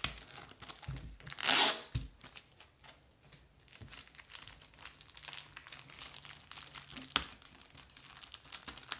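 Cardboard mailer packaging being torn open and handled: one loud rip about a second and a half in, then crinkling and small crackles, with a sharp snap near the end.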